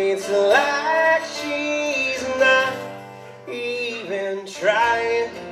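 Acoustic guitar strummed under a man's voice holding and sliding between sung notes, in a solo country song performance. The sound drops back briefly about three seconds in, then picks up again.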